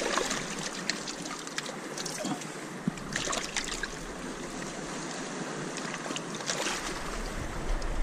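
Hands splashing and swishing in a shallow seawater tide pool among lava rocks, with water trickling and lapping over the stones and a few sharper splashes.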